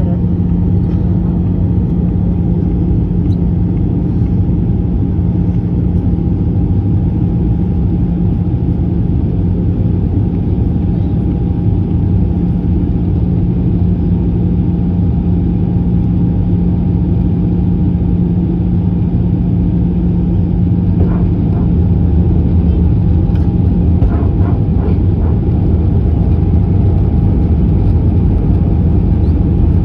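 Steady cabin noise of an Airbus A320-214 in flight: the rumble of its CFM56 engines and the air rushing past, with a steady low hum, growing slightly louder about two-thirds of the way through.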